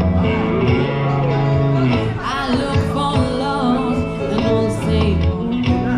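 Music: a song with a singing voice over guitar.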